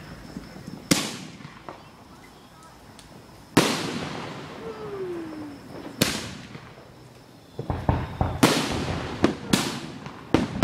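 Fireworks firing from the ground: single loud bangs every two to three seconds, each with a long fading tail, then a quicker run of cracks and bangs near the end.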